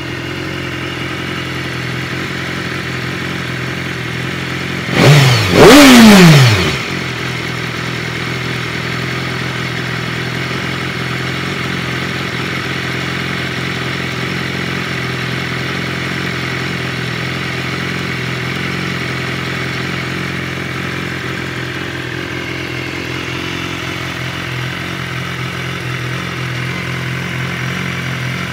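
BMW S1000RR's inline-four engine idling steadily in neutral, with two quick throttle blips about five seconds in whose pitch rises and falls away, the second longer and louder, before the engine settles back to idle.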